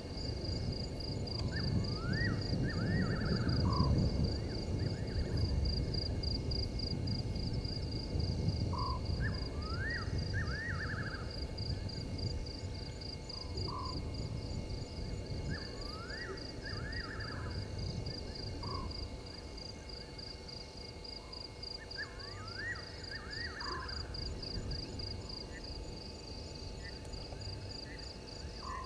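Night bush ambience: a bird's call phrase, a short low note followed by rising strokes and a quick run of notes, repeated four times about every six to seven seconds, over a steady high insect trill. A low rumbling noise is loudest in the first few seconds and then eases off.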